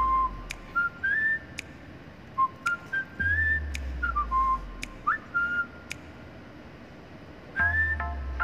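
Background music with a whistled melody of short sliding notes, over sparse percussion clicks and a deep bass note that comes in twice, about four seconds apart.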